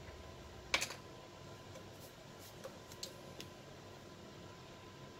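Light handling clicks over quiet room noise: one sharp click about a second in, then a few fainter ticks.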